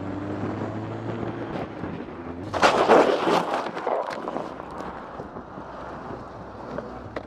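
A motorcycle's engine running with a slowly rising pitch, then about two and a half seconds in a loud crash as the motorcycle hits the back of an SUV and goes down, with a second or so of clattering impacts after it.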